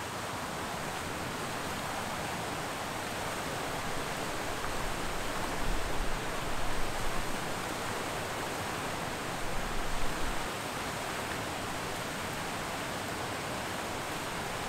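Steady rush of water pouring over a stepped concrete dam spillway, swelling briefly twice around the middle.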